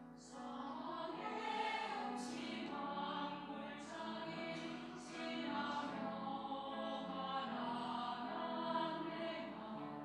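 Mixed church choir of men and women singing a hymn anthem in harmony, the voices entering just after the start following a piano introduction.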